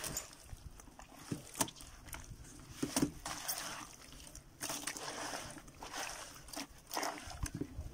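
Wet cloth being squeezed and worked by rubber-gloved hands in a plastic bucket of cement slurry: irregular squelching and sloshing with occasional knocks.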